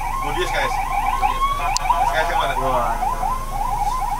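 Electronic siren of the police escort car ahead, sounding a fast repeating yelp. About a second in it briefly changes to a short rising tone.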